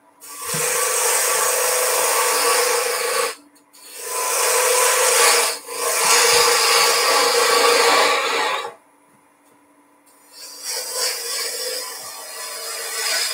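Turning tool cutting a spinning wooden blank on a wood lathe, shaping a sphere: a rough, rasping cutting noise in three passes of about three seconds each, broken by short pauses as the tool comes off the wood. A lighter, quieter cut starts near the end.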